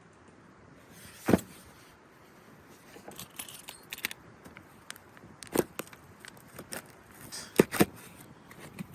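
Car stereo kit parts and packaging being handled, with light rattling and rustling. There are a few sharp knocks: one about a second in, one past the middle, and two close together near the end.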